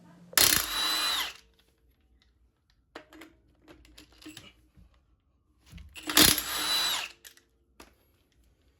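Milwaukee cordless impact wrench run in two short bursts of about a second each, some five seconds apart, with a steady whine under its rattle; faint handling clicks in between.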